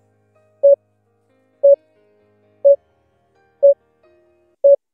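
Countdown timer beeping once a second: five short, identical mid-pitched beeps.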